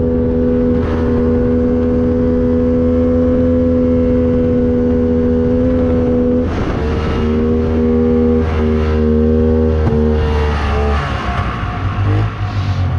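Polaris Indy XLT 600 snowmobile's two-stroke three-cylinder engine running at a steady cruising pitch. The pitch drops a little about six seconds in, and the engine backs off and winds down near the end. It is running on only two of its three cylinders, which the owner puts down to a stuck carburetor.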